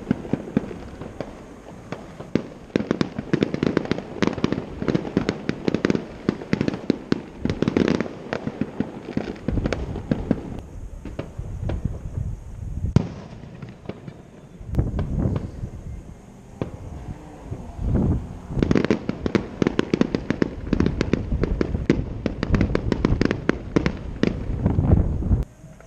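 Fireworks going off: a dense, near-continuous run of bangs, pops and crackles, easing off for a few seconds around the middle before building up again.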